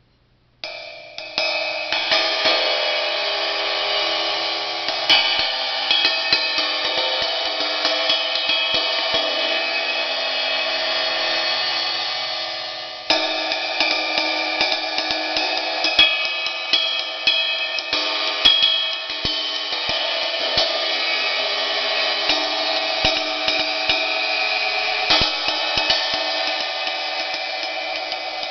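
1960s Zildjian 20-inch riveted sizzle ride cymbal struck over and over with a drumstick: the rivets keep up a continuous sizzling wash, with the ping of each stick stroke on top. It begins about a second in, and the wash drops away briefly just before halfway before the playing picks up again.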